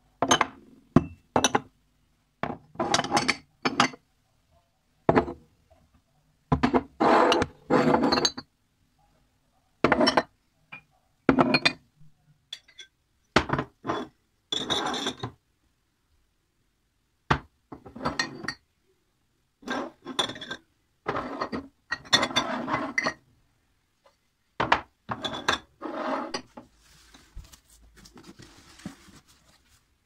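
Drinking glasses being set down on a cabinet shelf: a long string of separate clinks and knocks of glass against the shelf and against other glasses, with short silences between. Faint rustling near the end.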